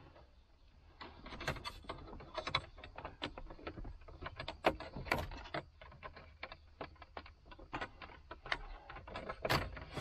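Irregular small clicks and taps of hard plastic car interior trim being handled: the centre-console decorative plate, just pried loose.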